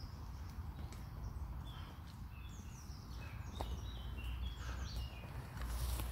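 Songbirds chirping, with many short falling notes throughout. Near the end a mountain bike rides up the dirt trail and passes close by, its tyres rolling over the leaf litter.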